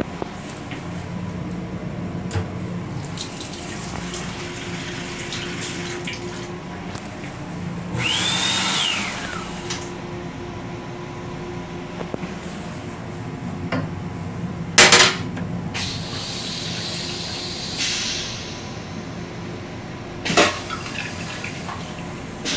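Steady hum of an M7 rail car in motion, heard inside its small restroom. About a third of the way in, the washbasin faucet runs for a second or two, and later there are two short, sharp clunks.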